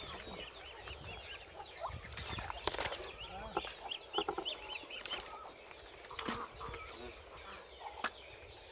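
Young ducks peeping in a steady run of short, high chirps. A few sharp knocks come through as well, the loudest about three seconds in.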